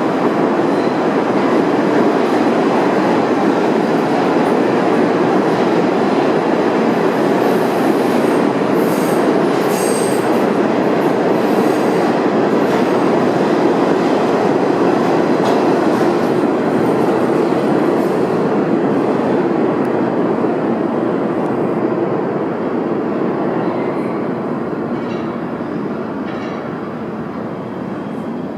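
R46 subway train running on the tracks with steady wheel and rail noise, a brief high wheel squeal about ten seconds in, then fading over the last several seconds as it pulls away.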